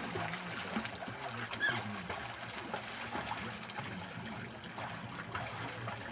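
Swimming-pool water splashing and trickling as a child swims, a steady wash of water with many small irregular splashes.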